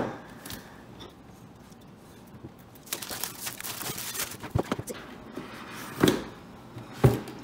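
Plastic shrink wrap crinkling and tearing as it is peeled off a cardboard box for about a second and a half in the middle, then two dull knocks as the box is handled.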